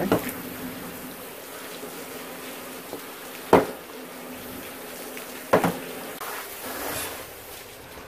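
Two sharp knocks on a cutting board about two seconds apart, with a weaker one near the end, over a steady buzzing hum.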